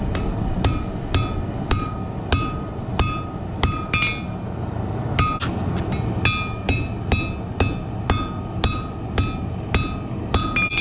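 Hand hammer striking hot 3/8-inch steel rebar on an anvil, about two blows a second, each with a short metallic ring, with a brief pause near the middle, as the sides of a tanto blade blank are forged flat. A steady low rumble runs underneath.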